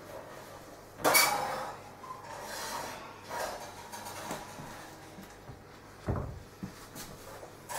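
Oven door opening with a clatter about a second in, then handling knocks as a baking dish of burritos is lifted out with oven mitts, and a dull knock about six seconds in as the dish is set down on a cork pot stand.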